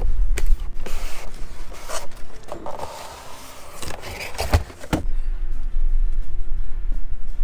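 A large cardboard box being handled and opened: the cardboard scrapes and rubs, with sharp knocks. This stops about five seconds in.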